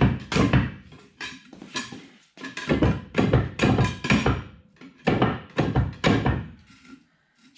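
Repeated hammer blows on the upturned rear hub of an International 4900 truck, knocking a part, most likely the old oil seal, out of it. The blows come about two to three a second in short runs with brief pauses, and stop about a second before the end.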